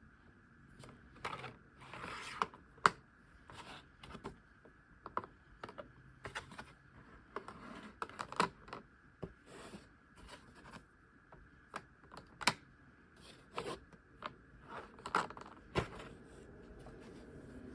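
Irregular light clicks, taps and short scrapes of small objects being handled on a tabletop, about one or two a second, over a faint steady hum.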